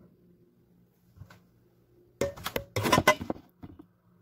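Kitchenware clattering on a counter: a cluster of knocks and clinks a little over two seconds in, lasting about a second, over a faint steady hum.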